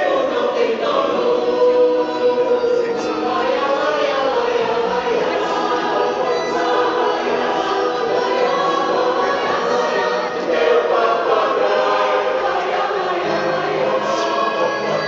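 An amateur choir of men and women singing a song together, accompanied by an electronic keyboard.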